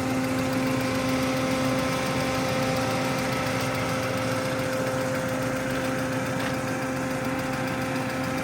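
Audi 80 B4's 2-litre petrol engine idling steadily, with the electric radiator fan running. The hydraulic-lifter knock the owner suspects is hardly audible.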